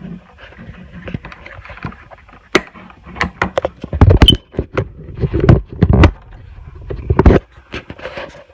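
Plastic clicks, scrapes and rattles as a hardwired ceiling smoke detector is twisted off its mounting base and its wiring plug is pulled from the back, with several heavier knocks in the second half. One short high chirp, the low-battery warning, comes about four seconds in.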